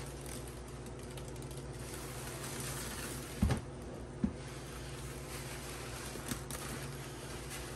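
A wet sponge full of thick, foamy cleanser paste being squeezed and kneaded by rubber-gloved hands in a plastic tub: a continuous crackling squelch over a low steady hum. Two dull thumps come a little under a second apart near the middle.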